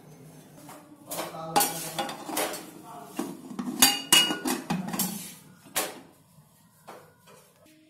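Aluminium pressure cooker lid being fitted and closed onto the cooker: a run of metal clanks and scrapes, a few of them ringing briefly, busiest in the middle and dying away near the end.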